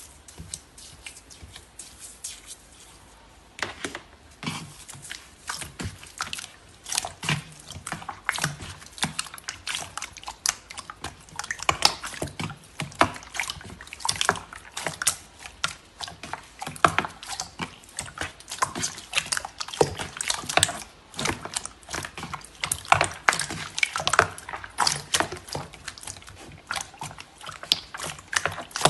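Clear slime mixed with foil pieces and glitter being pressed and kneaded by hand, making dense wet clicks and pops. It is quieter for about the first three seconds, then the squishing picks up.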